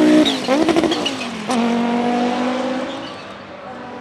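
Audi 90 Quattro IMSA GTO's 2.2-litre turbocharged five-cylinder engine lifting off just after the start: the note drops and the turbo chirps in a quick fluttering chatter for about a second. About a second and a half in it comes back on the throttle with a steady note that fades as the car pulls away.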